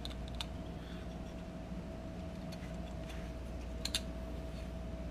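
A few faint clicks and taps of small plastic parts being handled, about half a second in and twice around four seconds in, over a steady low electrical hum with a faint steady tone.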